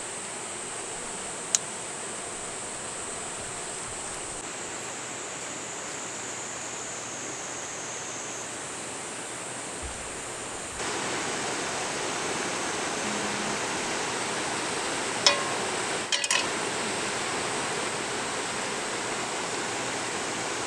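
Mountain stream rushing steadily, louder from about halfway on. A single sharp tap comes a second or two in, and a few short taps about three-quarters of the way through.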